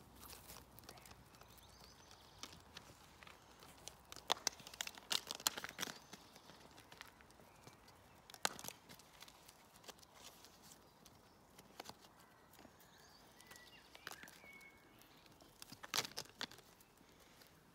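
Small plastic plant pot clattering and knocking against grass and gravel as a puppy carries and shakes it in its mouth. The knocks are irregular and come in clusters, loudest a few seconds in and again near the end.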